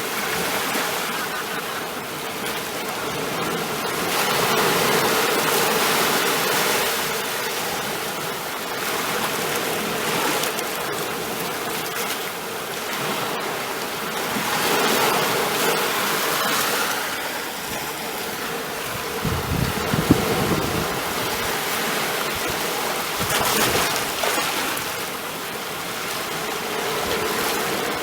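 Ocean surf washing in and drawing back, the rush of water swelling and easing every few seconds. A brief low thump comes about twenty seconds in.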